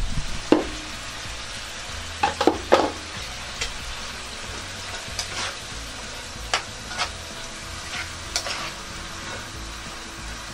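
Pork, carrots and French beans sizzling in a pan while being stirred, with a utensil knocking and scraping against the pan now and then.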